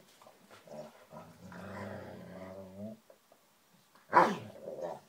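Two dogs play-fighting: one growls steadily for nearly two seconds, then a single sharp, loud bark about four seconds in, with faint rustling and mouthing between.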